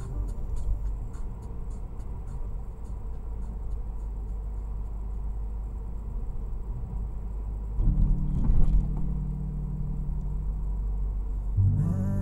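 Car driving, heard from inside the cabin: steady low road and engine rumble, with a louder rush about eight seconds in. Steady pitched tones come in near the end.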